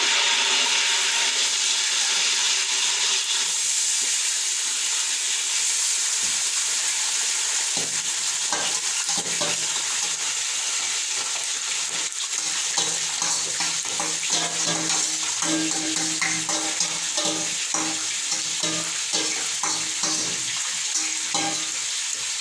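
Omena (small Lake Victoria sardines), washed and still wet, deep frying in hot oil in a sufuria with a loud, steady sizzle. From about eight seconds in, scattered sharp taps sound over the sizzle.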